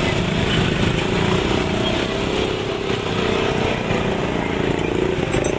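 A motor vehicle's engine running steadily, with a constant mid-pitched hum over road noise.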